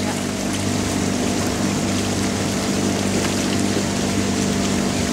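Outboard motor of a coaching launch running steadily at an even speed: a constant engine hum with water noise along the hull.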